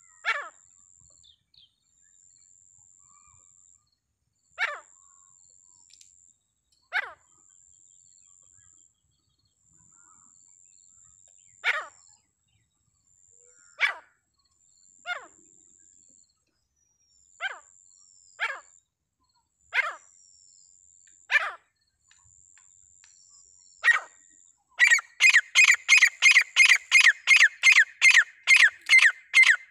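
Teetar (grey francolin) calling: short, sharp single calls every one to two seconds, then near the end a fast, louder run of about three to four calls a second.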